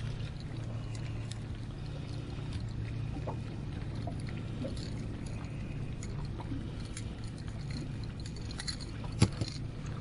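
Ambient sound on a fishing boat on the water: a steady low hum with scattered small knocks and clicks, and one sharp click about nine seconds in.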